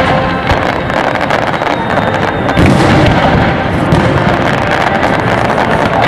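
Fireworks display going off in a dense, continuous barrage of bursting shells and crackling, with a heavier low boom about two and a half seconds in.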